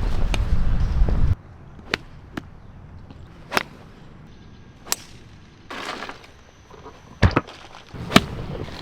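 Wind rumbling on the microphone, cut off abruptly about a second in, then golf sounds: about six separate sharp clicks and knocks a second or more apart, from clubs striking balls and other impacts around the course.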